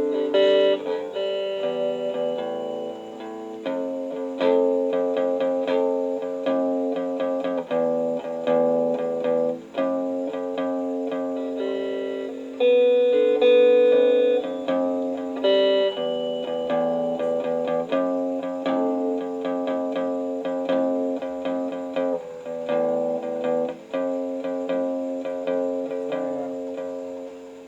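Electric guitar played through a Boss compressor pedal: picked chords and runs of notes, some held and left ringing, the loudest about halfway through.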